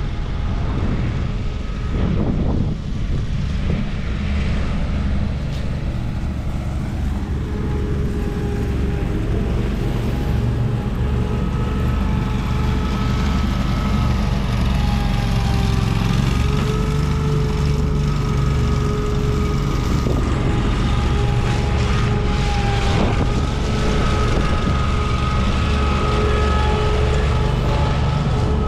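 A small engine running steadily, its whine wavering slightly in pitch over a low rumble.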